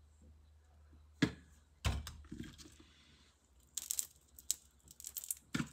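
Raw prawns being handled in a stainless steel sink: scattered crackles and clicks of the shells, with a knock and dull thump about two seconds in and a quick run of crackly clicks in the second half.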